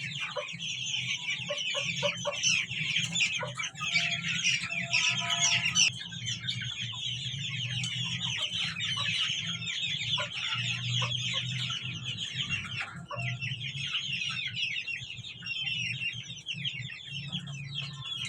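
Aseel desi chickens calling: a dense, continuous chatter of short high peeping calls, with some lower clucks, over a steady low hum.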